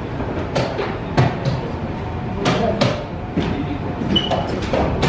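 Wooden chess pieces knocked down onto a wooden board in quick blitz moves: several sharp clacks at irregular intervals, over the murmur of a busy playing hall.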